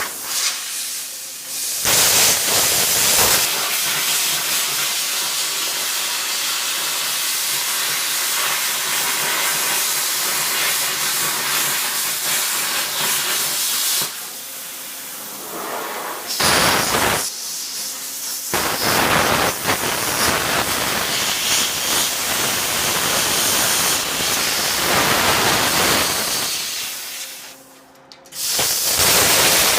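Plasma cutter cutting through a steel tractor wheel rim: a loud, steady hiss of the arc and air jet, which stops and restarts a few times as the torch is moved along the cut.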